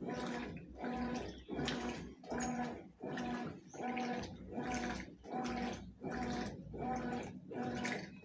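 Consul CWS 12 washing machine agitating: the motor hums in short strokes, reversing about once every three-quarters of a second, with water and clothes sloshing in the tub.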